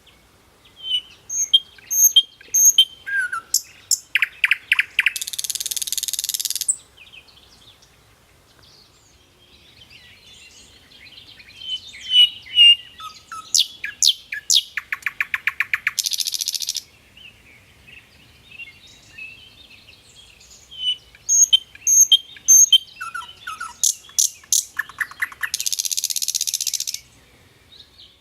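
A songbird singing in three bouts about ten seconds apart. Each bout is a run of sharp chirps and whistles that speeds into a rapid trill and ends in a harsh, hissing buzz.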